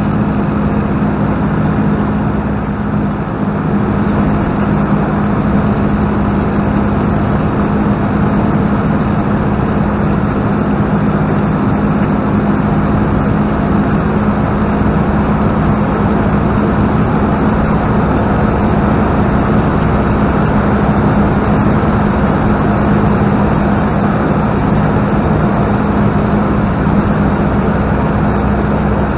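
Two-seat Spitfire's Rolls-Royce Merlin V12 engine running steadily in flight, a loud, even drone heard inside the cockpit, dipping slightly about three seconds in.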